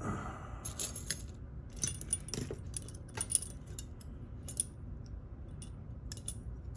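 Small metallic clicks and light rattles at irregular intervals from the parts of a Nagasawa pin-tumbler lock and metal lock tools being handled during disassembly.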